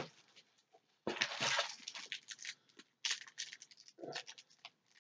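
Package being opened and handled by hand: several short bursts of crinkling, scraping and tearing of cardboard and wrapping, with scattered small clicks.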